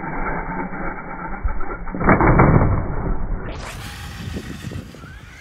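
Slowed-down, pitched-down sound of a hobby-grade RC truck jumping, with a heavy thump about two seconds in as it lands on the asphalt. From about three and a half seconds the sound runs at normal speed with tyre and motor noise. Near the end a falling pitch sweep marks the sound slowing down again.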